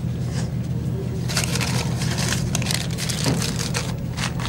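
A steady low hum, with a run of paper and cloth rustling and light clicks through the middle as tickets and banknotes are tucked into a jacket.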